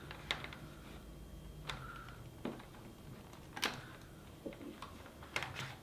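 Several faint, separate clicks and taps of charging cable plugs and the power bank's plastic casing being handled, with the plugs pushed into the ports.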